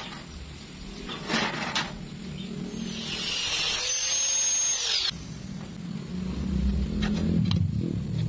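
Power tool working steel angle iron, most likely an angle grinder cutting: a high whine with a hiss through the middle that drops away sharply, then a lower motor hum. Two knocks come about a second and a half in.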